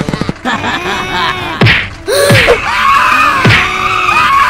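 Background music mixed with cartoon sound effects: squeaky tones that glide up and down, and two sharp hits with a falling sweep, one a little past a second and a half in and one about two seconds later.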